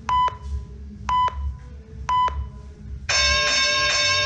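Electronic countdown timer beeping three short beeps about a second apart, then a long beep starting about three seconds in: the start signal for a timed bout.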